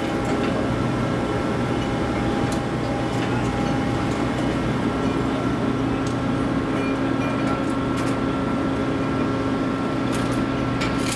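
Steady drone of heavy machinery with a constant hum, and a few faint clicks. It comes from the lifting operation, most likely the ship's crane machinery holding the suspended rail car.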